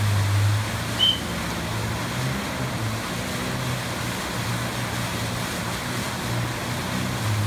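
Rescue personal watercraft's engine running, its revs rising and falling as it holds station in fast whitewater, over the rush of churning water and spray. A short, high chirp about a second in.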